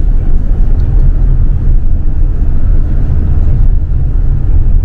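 Steady low road and drivetrain rumble inside the cabin of a moving Toyota RAV4 Hybrid.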